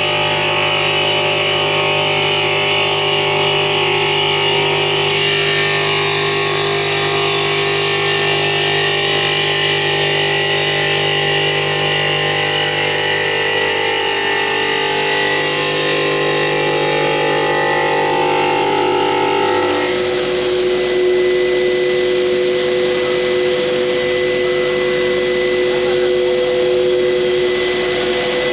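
CNC stone polishing machine running, its polishing head working the stone with a steady, many-toned machine whine. About 20 seconds in, the mix of tones changes abruptly and then holds steady again.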